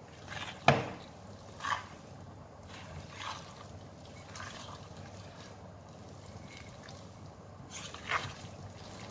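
Thick cheese-studded batter being stirred by hand in a glass mixing bowl: irregular wet stirring strokes, with one sharp knock of the utensil against the glass about a second in.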